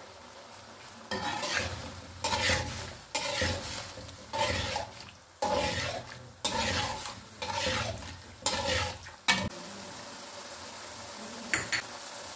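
A metal spatula stirs and scrapes beef pieces around a metal wok, about one stroke a second, over the steady sizzle of freshly added ghee. The stirring stops after about nine seconds and the sizzle carries on alone, with a short clink near the end.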